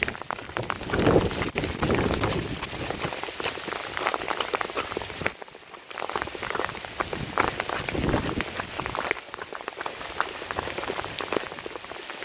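Pea-sized hail pelting down as a dense, continuous stream of sharp ticks, with wind rumbling on the microphone in the first couple of seconds and the hail briefly easing twice.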